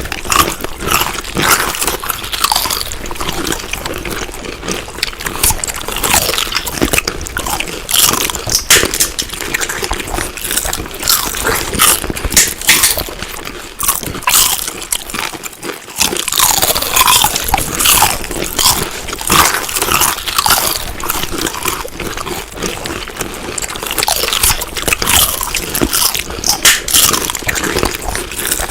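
Crunchy food being chewed close to the microphone: a dense, continuous run of crisp bites and crunches.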